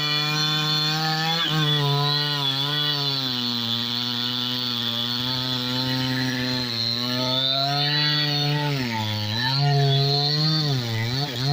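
New West 628 two-stroke chainsaw running hard while cutting teak, its engine pitch sinking and recovering as the chain bites into the wood, with two deep dips near the end.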